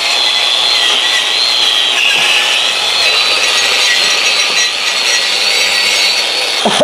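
A Makita GA4030 4-inch angle grinder running with an abrasive disc pressed against a cast iron brake rotor, scrubbing rust off its hub-mounting face. The motor whine wavers in pitch as the disc is worked across the metal, over a steady rasping hiss.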